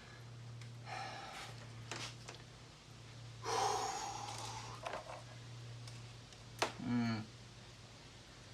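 A man's breathy sighs and exhales, the loudest about three and a half seconds in, then a click and a short falling groan near the end, over a steady low hum.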